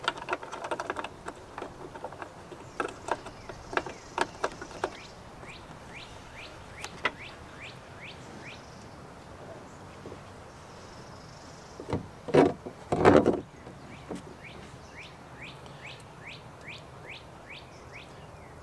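A bird chirping over and over, short falling notes two or three a second, while the heavy tow mirror is worked into place against the truck door: clicks and light knocks in the first few seconds, and two loud knocks about twelve and thirteen seconds in.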